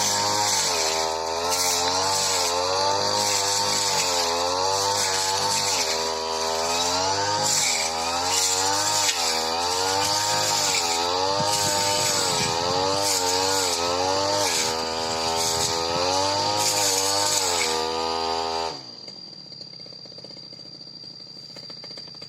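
Supra SPR328 two-stroke brush cutter engine running at high revs, its pitch rising and falling as the blade cuts through thick grass. Near the end it drops suddenly to a much quieter, rattling idle.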